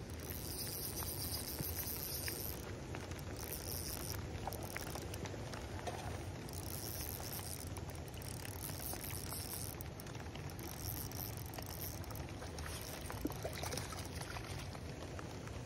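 Steady rain pattering on a pond's surface. Near the end a hooked trout splashes in the landing net.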